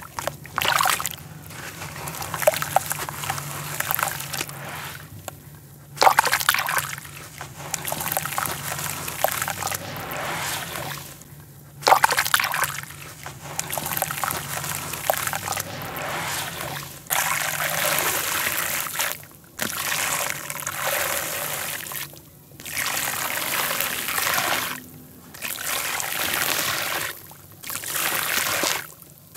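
Red dirt crumbled by hand in a tub of water, crunching and breaking apart with water splashing and trickling, in bursts of a few seconds with short pauses between. In the later part, dry red dirt powder pours down into the wet tub in steadier stretches of gritty hiss.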